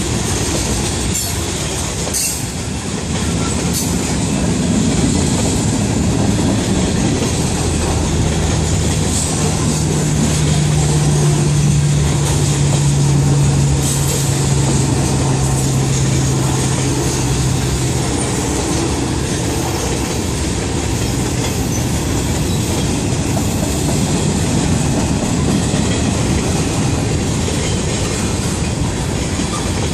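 Freight train of covered hoppers, boxcars and tank cars rolling through a grade crossing: a steady rumble of steel wheels on rail with occasional sharp clanks, and a low steady hum for about ten seconds in the middle.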